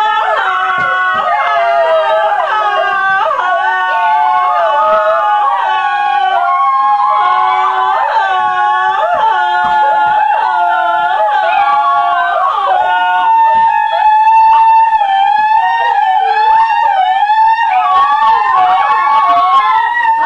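Several voices holding long, high-pitched wavering notes at the same time, a deliberately annoying siren-like wailing made for fun. About two-thirds of the way through, one steadier high note stands out above the rest.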